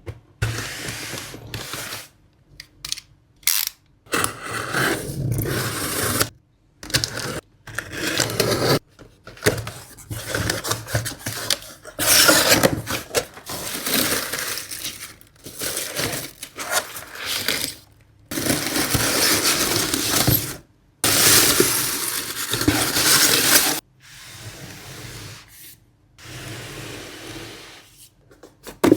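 Close-miked ASMR handling of Apple product packaging: a run of scraping and rustling noises as cardboard and wrapping are worked by hand. The noises come in bursts of one to a few seconds with short pauses between, and the longest unbroken stretches fall a little after the middle.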